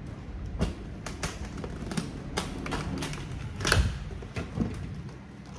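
Guitar hard case being handled: a string of irregular clicks and knocks as the lid and latches are worked, the loudest a little under four seconds in.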